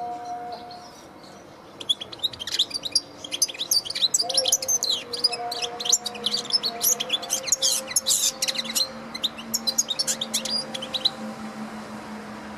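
European goldfinch singing: a fast, run-on twitter of rapid high notes that starts about two seconds in and stops near the end.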